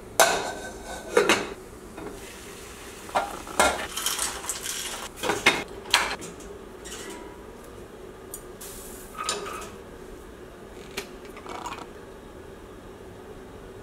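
Cookware clatter: a saucepan lid and metal utensils knocking against the pot, with a run of sharp clinks in the first six seconds, then a few softer clinks.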